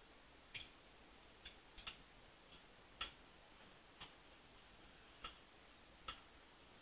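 Faint, irregular ticks, roughly one a second, as a fly-tying bobbin wraps thread around a jig hook held in a vise.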